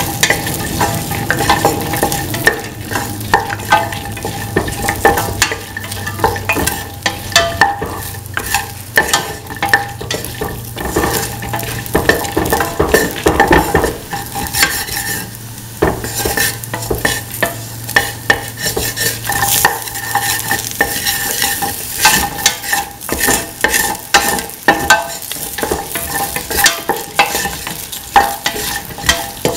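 Okra, shallots and ginger being sautéed in oil in a stainless steel pan: a spatula scrapes and knocks irregularly against the metal as the vegetables are stirred, over the sizzle of the hot oil.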